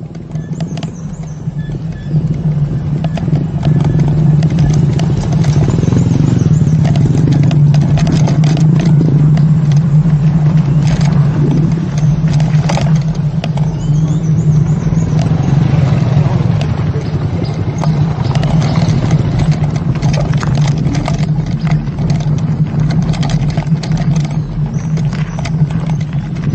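VSETT electric scooter on the move: a steady low hum with wind and road noise, scattered clicks and rattles over it. It builds up over the first few seconds.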